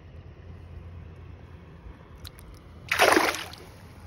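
A smallmouth bass being let back into shallow creek water: one short, loud splash about three seconds in.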